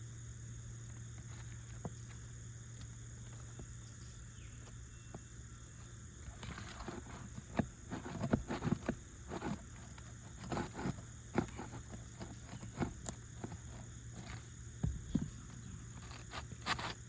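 Scraping and clicking of a roof snake (shingle nail remover) working under asphalt shingles to find and pry out a nail, in irregular bursts starting about six seconds in, over a steady low rumble.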